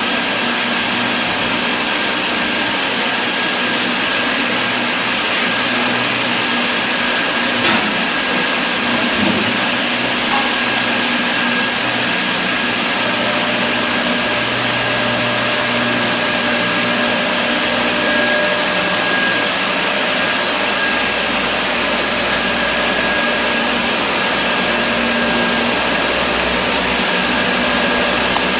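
Steady whir of running workshop machinery, with a faint steady whine over it and a single light click about eight seconds in.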